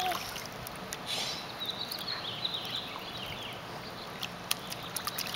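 Pool water lapping and splashing lightly around a man and a baby wading in it, with small scattered splashes. A faint, distant high voice sounds about a second in.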